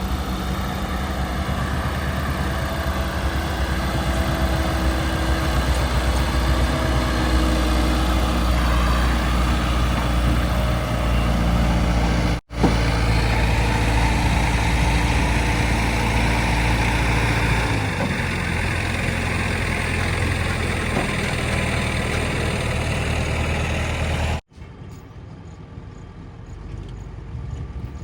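Heavy diesel engine running steadily, from a backhoe loader or tractor. Its pitch drops a little past the middle. The sound cuts off abruptly twice, once about midway and again near the end, and is quieter after the second break.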